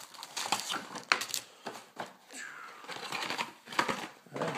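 Trading-card packaging opened by hand: crinkling and tearing of wrapper and box with scattered sharp clicks, and a short scraping sound about two and a half seconds in.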